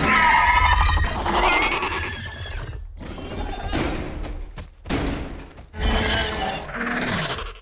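Dinosaur vocal sound effects: a run of loud, pitched, wavering calls and screeches, about four in a row with short breaks between them.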